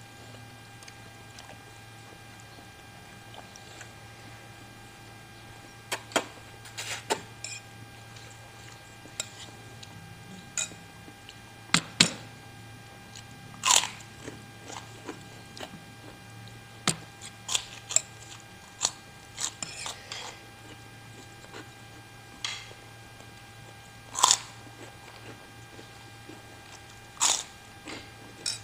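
Someone eating spicy meatball noodle soup (bakso mercon): chewing, with a dozen or so sharp clicks and short smacks at irregular intervals. A steady low hum runs underneath.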